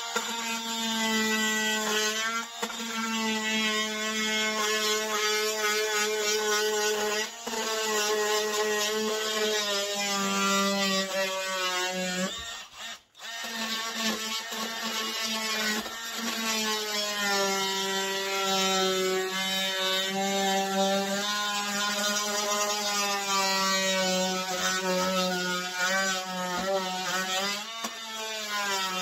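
Cordless oscillating multi-tool running steadily with a buzzing whine, its blade cutting into a plastic lithium battery case. The pitch wavers a little as the blade loads up. It stops for about a second near the middle, then starts again.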